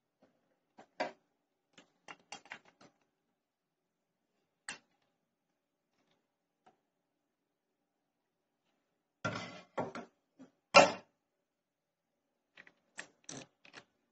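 Irregular plastic clicks and knocks from a Canon 821 ink cartridge being handled and seated in the clamp of an ink cartridge refill machine, with a refill tube pushed on. A denser cluster of knocks comes about two thirds of the way through, holding the loudest knock, and a few lighter clicks follow near the end.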